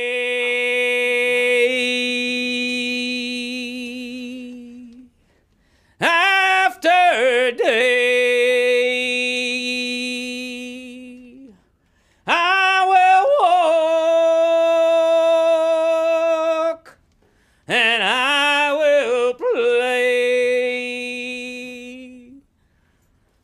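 A solo singing voice holding four long notes, each about five seconds, separated by short silences, with quick swoops in pitch as several of the notes begin; no accompaniment.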